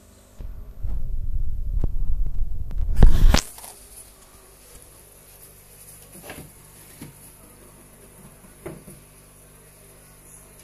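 Camera handling noise: a loud low rumble as the camera is moved about, ending in a sharp knock about three seconds in, then a few faint taps.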